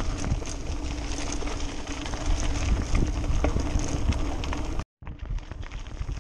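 Bicycle ridden over a gravel path: tyres crunching and the bike rattling in a stream of small clicks, over a low wind rumble on the microphone. The sound cuts out for a moment about five seconds in, then carries on.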